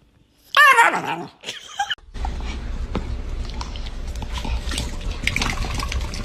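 A dog gives two short, high, wavering yelps, then a steady noisy rumble carries on for the rest.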